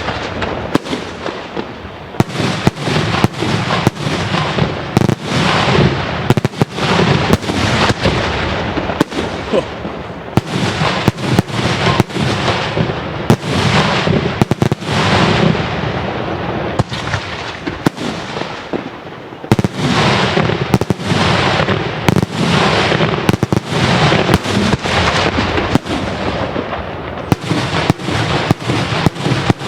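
Daytime fireworks display: a dense, continuous barrage of sharp bangs, many overlapping each second, over crackling.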